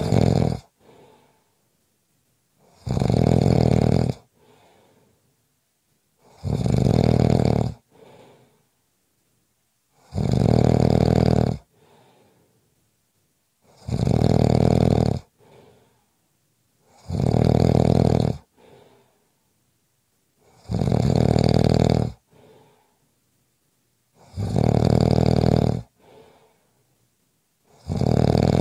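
A sleeper snoring steadily and loudly, one long rasping snore on each breath in about every three and a half seconds, eight in all, with a faint short breath after each.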